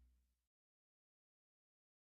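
Near silence: the faint tail of fading music dies out about half a second in, then complete digital silence.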